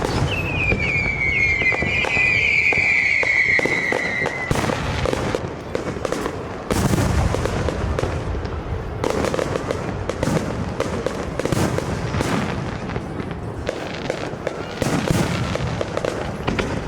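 Fireworks show: a steady run of booms and crackling bursts. Near the start a high whistle slides down in pitch over about four seconds.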